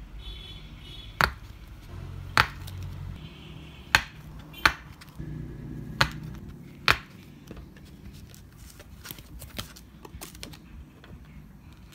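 Sharp taps and knocks on a wooden tabletop as enamel pins on backing cards and rubber pin clutches are handled: six loud ones in the first seven seconds, then fainter clicks.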